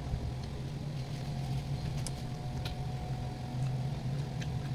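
Steady low mechanical hum, with a few faint, scattered clicks from chewing and handling grilled isaw skewers.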